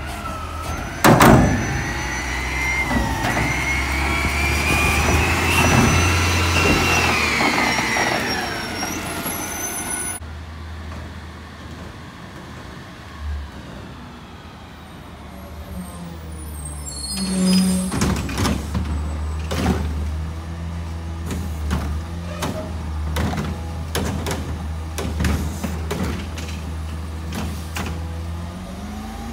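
Garbage truck diesel engine revving with a hydraulic whine that rises and then falls back, after a loud bang about a second in. About ten seconds in, another garbage truck's engine runs steadily as it rolls up, and from about seventeen seconds there is a string of knocks and clanks as its Curotto Can arm works.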